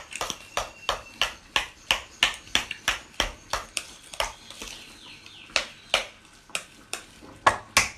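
A fork clinking and tapping against the side of a stainless steel pot while it stirs crushed potatoes and herbs, in uneven taps a few a second, with a brief pause about halfway through.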